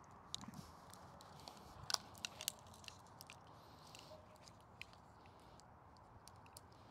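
Faint footsteps and handling noises of a person moving about on a lawn: a few irregular crunches and sharp clicks, loudest in a cluster about two seconds in, over a low steady hiss.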